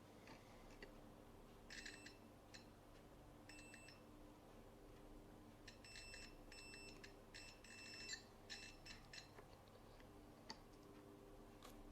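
Multimeter continuity beeper (Sanwa CD771) sounding as the probes touch points on a circuit board: two short high beeps, then a quick run of beeps in the middle, with faint probe clicks. A continuity beep signals near-zero resistance between the probed points, here a sign of a shorted part.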